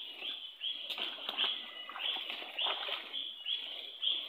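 A chorus of short, high chirping calls from night animals, repeating about two or three times a second, over the rustle of feet and bodies pushing through undergrowth.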